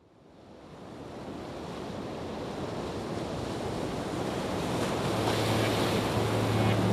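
A rushing, surf-like noise fades in from silence and swells steadily louder. A low sustained musical note comes in underneath it about five seconds in.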